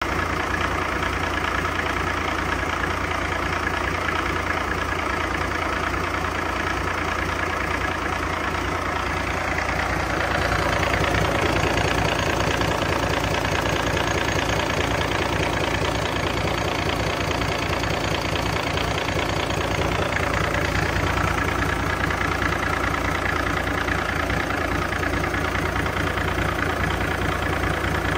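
Cummins ISX 15-litre inline-six diesel engine idling steadily on a run stand, getting slightly louder from about ten seconds in.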